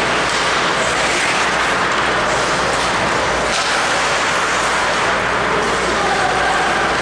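Ice hockey rink noise during play: a steady, loud hiss of skates on the ice and arena din, with a few faint knocks of sticks or puck.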